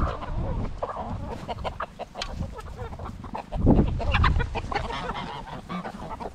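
A flock of chickens clucking and calling, with many short ticks scattered through, and a louder low burst a little past halfway.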